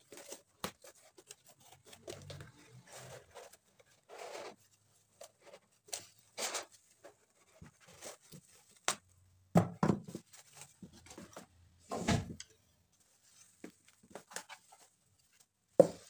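Cardboard shipping box being opened and handled: flaps rustling and scraping in short bursts, with several knocks, the loudest near the end.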